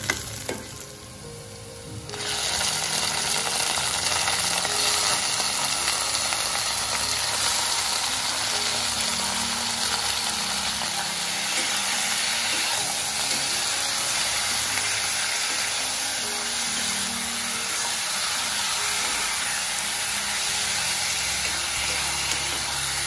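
Chicken pieces frying in hot oil in a pan, a steady sizzle that starts about two seconds in, as they are stirred with a metal spatula.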